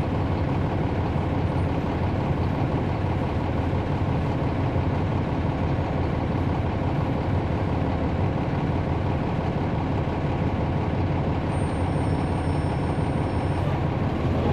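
Steady drone of a transit bus's Cummins ISL9 diesel engine heard from inside the cabin, with no revving or gear changes.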